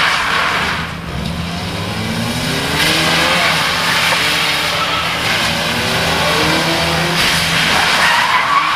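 Ford Mondeo hatchback driven hard through tight turns on wet tarmac: the engine revs climb and fall repeatedly with the throttle over a steady wash of tyre hiss and skidding on the wet surface.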